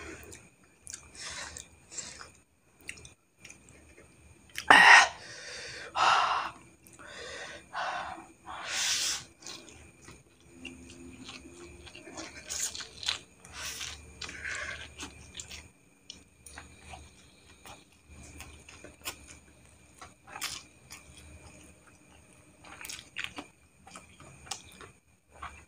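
A person eating instant fried noodles: wet chewing and mouth smacks, with several loud slurps of noodles between about five and nine seconds in.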